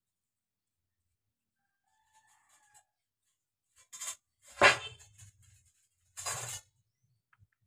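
A rooster crowing, loudest about four and a half seconds in, with a few metallic clinks from the steel drill pipes being handled.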